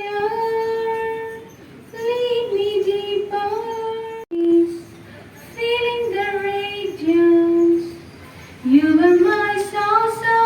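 Young female voice singing a slow melody without words picked up by the recogniser: long held notes that slide up or down into the next pitch, phrases broken by short pauses.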